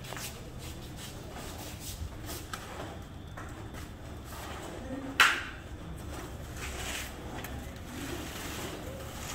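Background noise of an indoor building site: a steady low hum with scattered light clicks and taps, and one sharp knock a little past halfway.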